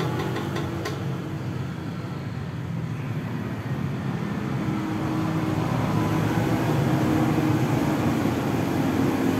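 A motor vehicle's engine runs steadily under road noise, growing a little louder about halfway through.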